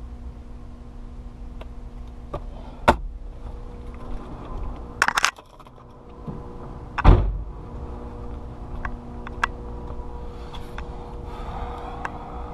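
Truck cab door being worked: a few sharp clicks and a short rattle, then a heavy slam about seven seconds in, over a steady hum.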